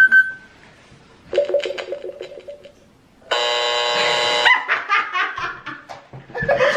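Lie detector machine giving its verdict: a short beep, then a pulsing electronic tone, then a harsh buzzer for about a second, the sound that flags the answer as a lie. Laughter follows the buzz.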